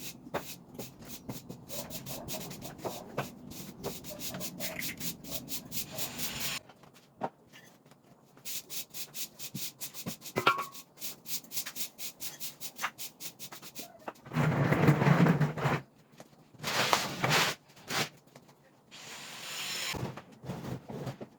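Rapid scrubbing and rubbing strokes of cleaning, with louder bursts of noise lasting a second or two in the second half.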